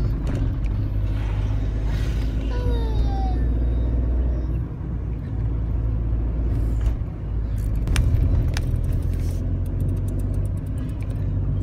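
A car's engine and tyres give a steady low rumble as it climbs a winding mountain road. A short falling tone comes about three seconds in, and a few sharp clicks follow later.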